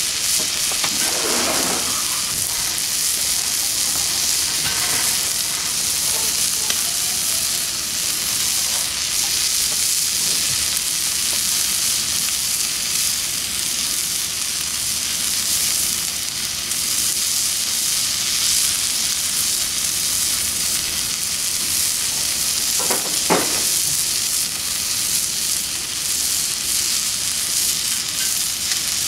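Steak sizzling steadily as it sears on the flat steel top of a Pit Boss griddle, an even frying hiss that holds throughout, with a short, sharper sound about three-quarters of the way in.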